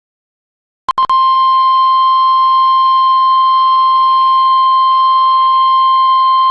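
Weather radio warning alarm tone announcing a severe thunderstorm warning: a few sharp clicks about a second in, then a single loud, steady, high-pitched tone.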